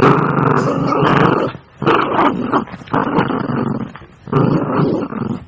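Dog growling in several long, rough growls with short breaks between them, the sound of a dog worked up while biting and tugging at a stick in play.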